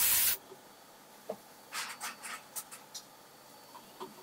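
Automatic sock knitting machine with a Complett toe-closing unit running, its pneumatics letting off a short loud blast of air at the start, then a quick run of shorter air puffs and clicks in the middle.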